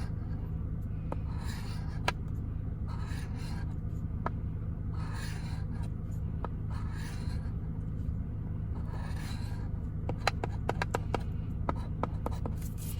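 Scratch-off lottery ticket being scratched: short rasping scrapes every second or two, then a quick run of light ticks near the end, over a steady low hum.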